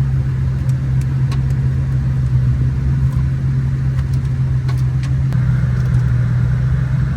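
Nissan 350Z drift car's 3.5-litre V6 idling steadily, a constant low hum with no revving.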